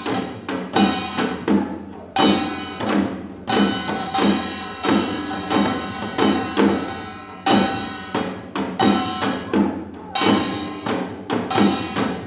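Percussion-led music for a Korean mask dance: drum strokes in a steady, repeating rhythm, with tones that ring on after the strokes.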